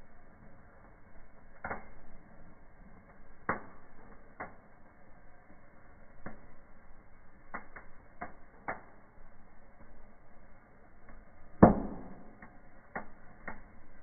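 Burning conifer branches and wood crackling, with irregular sharp pops; one much louder pop comes about three-quarters of the way through.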